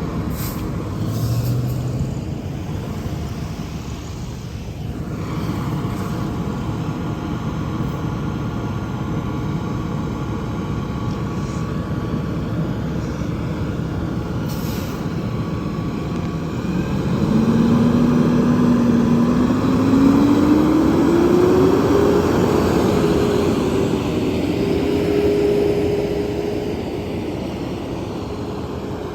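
Fire truck's diesel engine running steadily, then revving up about halfway through, its pitch climbing in steps and holding high near the end, as the apparatus pulls away.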